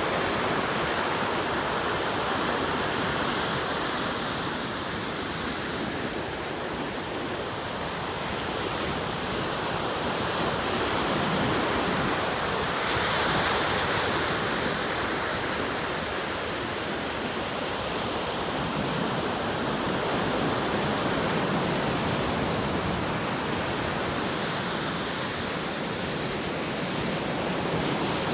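Atlantic Ocean surf breaking and washing ashore in a continuous rush, with slow swells in loudness and one stronger surge about halfway through.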